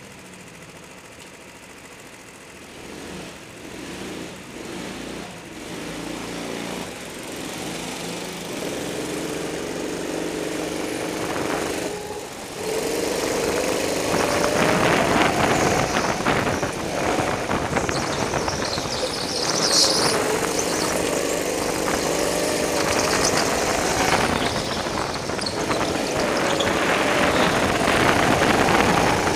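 Go-kart engine, low at first, then revving as the kart pulls away and laps the track. Its pitch rises and falls with the throttle, heard from on board the kart.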